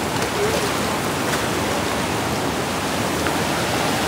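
Fast-flowing monsoon stream rushing steadily, a dense unbroken roar of water; the stream is running high with a strong current.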